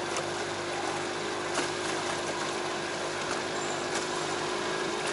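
A boat's motor running steadily with a low, even hum, under a steady hiss of water moving past the hull.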